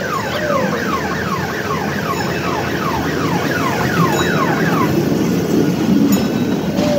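Rapid electronic chirps, each falling in pitch, about four a second, like a siren or alarm tone, stopping about five seconds in. Under them runs the steady rumble of a kiddie train ride moving along its track.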